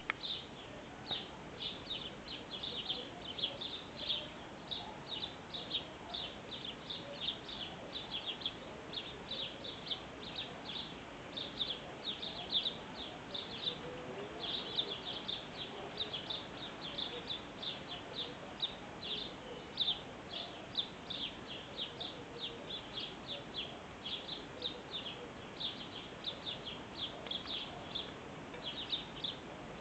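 Small birds chirping continuously: short high chirps, several a second, overlapping as from a group of birds.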